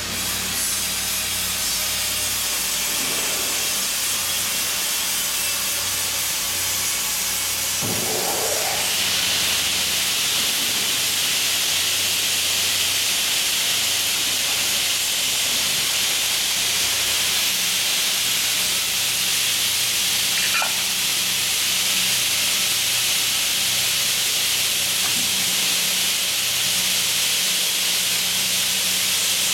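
JELY JSD-350W double-head miter saw running, a steady hiss over a low hum that grows louder and brighter about eight seconds in.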